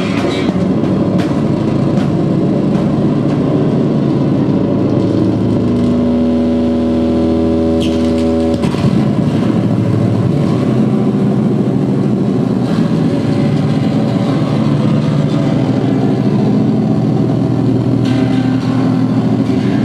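Loud, sustained distorted electric-guitar drone and feedback from a guitar laid on the stage floor and worked through effects pedals into amplifier stacks. A clearer held chord of steady tones rings out from about six seconds in and cuts off suddenly shortly before nine seconds.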